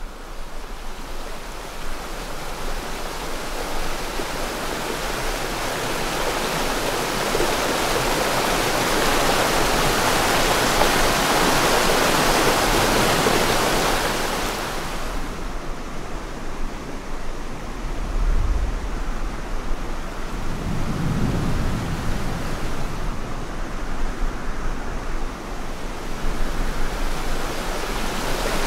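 Steady rushing of a creek's flowing water and small waterfalls. It swells in the middle, then turns duller about halfway through, with a few low rumbles later on.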